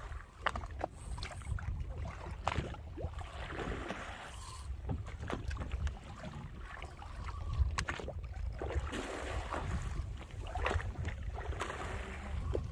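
Wind rumbling on the microphone over sea and boat noise aboard a fishing boat, with scattered sharp clicks and knocks.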